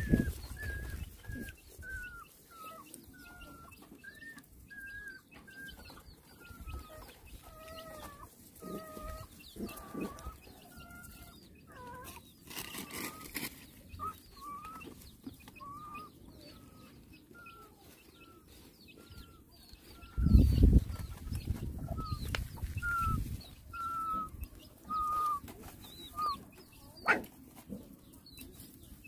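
Puppy whimpering: a steady string of short, thin whines, roughly one a second. About two-thirds of the way through there is a brief loud burst of rustling and bumping.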